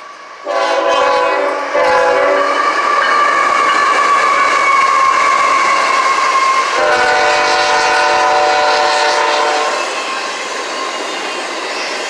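Freight locomotive air horn sounding several blasts, a short one, then a long one, then another long one that stops near the end, over the rumble of the passing train. The train noise runs on after the horn stops.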